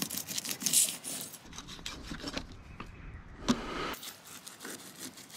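Kitchen knife cutting a fillet off a bream on wooden boards, the blade rasping through the scales and skin in scraping strokes, strongest in the first second or so. A single sharp tap about three and a half seconds in.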